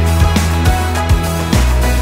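Background music with a steady beat, about two beats a second over sustained bass notes.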